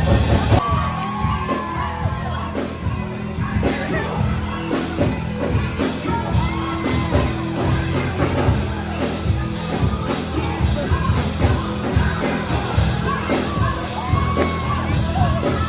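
Loud party dance music with a steady pounding bass beat and a singer, with people shouting over it.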